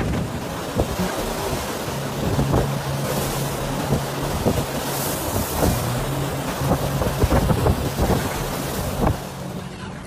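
Storm wind buffeting the microphone over heavy surf crashing and washing across a flooded floor, with many short sharp knocks and a faint low hum underneath. The sound drops off a little before the end.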